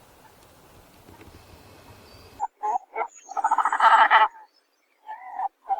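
An animal calling in a run of short croaking calls with one longer, rough call of about a second in the middle. The calls start suddenly a couple of seconds in, after a faint steady hiss.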